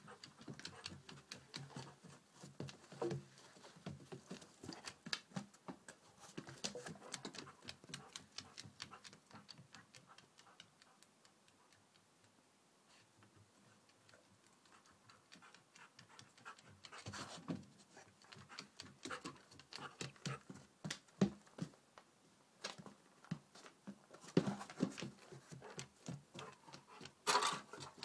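A search-and-rescue dog's claws ticking on a bus floor as it moves along the aisle, with panting. The ticking thins out for a while after about ten seconds, then grows louder near the end as the dog comes right up close.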